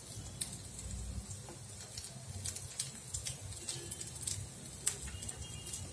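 Koftas sizzling gently in a little oil in an appam pan, with scattered small crackles and pops over a steady low hum.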